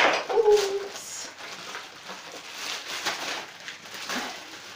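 Plastic wrapping rustling and crinkling as serving trays are unwrapped and handled, with a sharp clack at the start and a short falling tone just after it.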